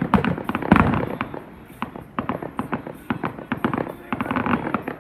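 Aerial fireworks going off in quick succession: a rapid string of sharp bangs and crackles, densest and loudest about a second in and again near the end.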